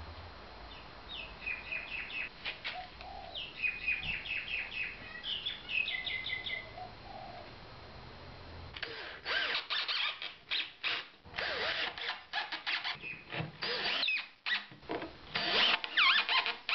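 Birds chirping in short repeated phrases for the first several seconds. Then, from about nine seconds in, a cordless drill driving screws through a wooden rail into an MDF base, in irregular short bursts with squeaks.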